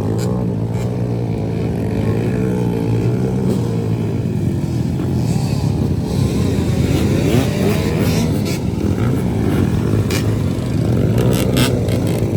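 Motorcycle engine running steadily, its pitch wavering a little in the middle, with a few sharp clicks near the end.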